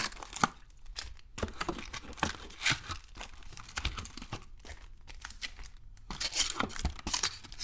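Wrapped baseball card packs crinkling and rustling as they are pulled out of a cardboard hobby box, with irregular crackles throughout.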